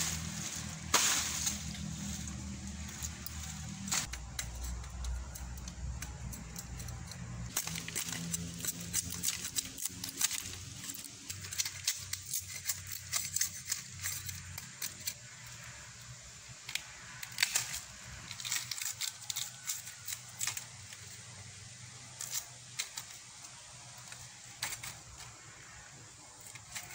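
Machete blade cutting and stripping rattan stalks to get at the edible shoot: irregular sharp cracks, chops and scrapes, with rustling of fronds and dry leaves.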